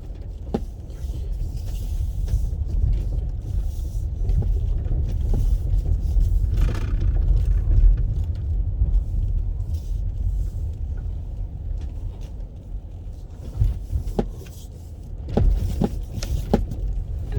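Steady low rumbling noise with a few faint clicks, and no speech.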